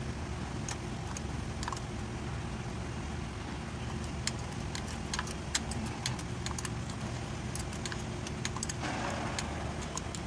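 Light metallic clicks and jangling of small parts and keys being handled while the ignition switch is refitted, scattered irregularly, over a steady low background hum.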